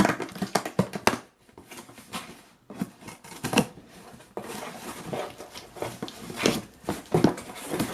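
A cardboard shipping box being opened and unpacked by hand: irregular clicks, scrapes and tearing of tape and flaps, with a stretch of packaging rustle in the middle.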